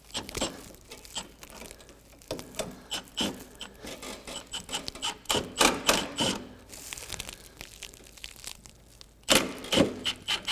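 Irregular clicks and knocks of bolts and metal parts being handled on the snowblower's handlebar frame. Near the end a cordless impact driver runs, driving the nut onto a carriage bolt.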